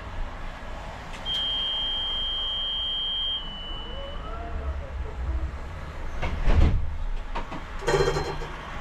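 Škoda Anitra 03T6 tram's door-closing warning: a steady high beep lasting about two seconds, over the low rumble of the tram. A few seconds later come several heavy thumps and clicks from the tram.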